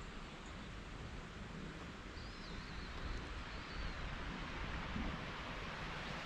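Steady outdoor ambience of hiss and low rumble. A faint, high, warbling bird call runs for about a second and a half, starting around two seconds in.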